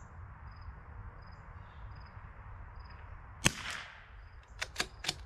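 A single shot from a .22 LR Ruger Precision Rimfire rifle about three and a half seconds in: one sharp crack with a short ringing tail. About a second later come three or four quick clicks, which are the bolt being worked to chamber the next round.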